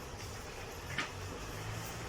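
A single short, sharp click or tap about halfway through, over a steady low background hum.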